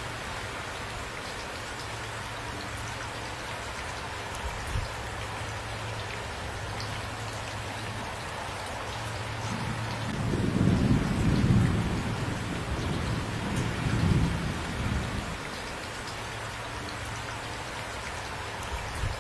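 Steady rain falling, with a low rolling rumble of thunder about halfway through that swells twice and then fades back into the rain.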